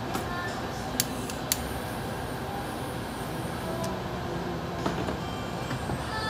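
Steady restaurant background noise with faint music, broken by a few sharp clicks of metal tongs at a small tabletop charcoal brazier: two loud clicks close together about a second in, then two softer ones later.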